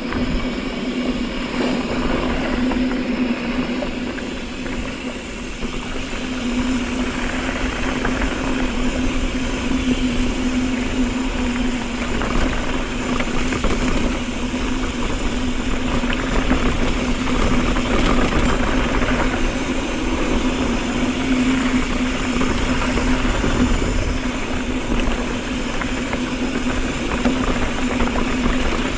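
Mountain bike rolling fast down a dirt fire road: a steady hum from the tires with a rumble of wind on the microphone and constant rattling over the rough surface.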